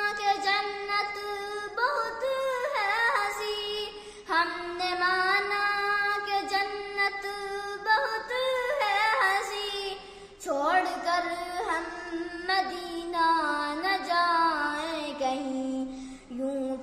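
A young girl singing an Urdu naat solo, a devotional song in praise of the Prophet Muhammad, in long melodic phrases with wavering held notes and short breaths between them.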